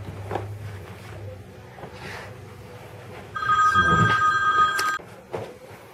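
A steady two-tone electronic ring sounds a little past halfway and stops after under two seconds. Before it there is faint rustling of a cloth wiping the engine bay.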